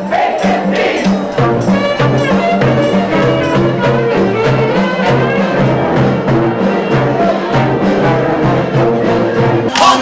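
Brass band playing: a repeating low brass bass line under horn melodies, with a steady drum beat.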